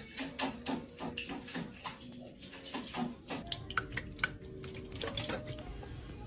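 A cat's paw dipping into and splashing water in a small bowl, in irregular splashes and taps several times a second.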